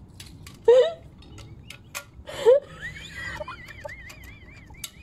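Two short, loud laughing yelps from a woman among clicks and rustles of scrambling, then a high, wavering whistle from about three seconds in.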